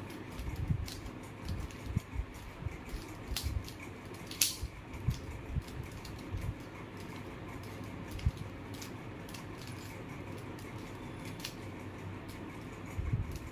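Plastic mirror cube being turned by hand: irregular clicks and clacks as its layers turn, with soft knocks of handling. Busiest in the first several seconds, sparser in the middle, and picking up again near the end.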